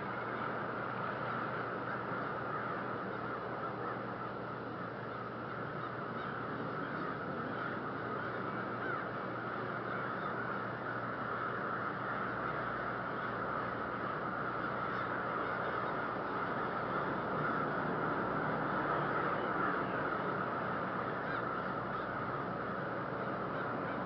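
A large flock of black birds calling all at once, a dense steady chorus of overlapping calls with no single bird standing out.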